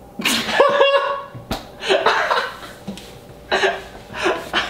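People laughing in short bursts, with one sharp smack about a second and a half in.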